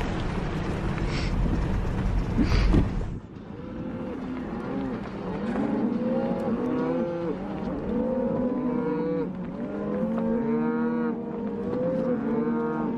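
For about three seconds a vehicle rumbles along a gravel road. That stops suddenly and a herd of Hereford-type beef cattle starts mooing, many long calls overlapping, one after another, through the rest.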